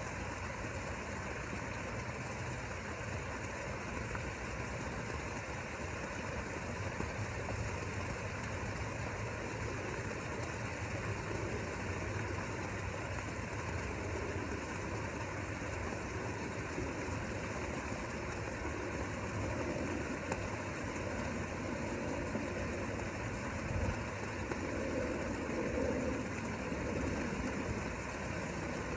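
Steady low mechanical hum, like a motor running continuously.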